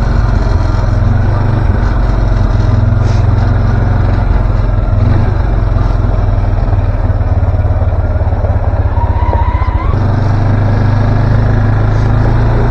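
ATV engine running steadily as it is ridden down a rough dirt trail, its note briefly dropping about ten seconds in before picking back up.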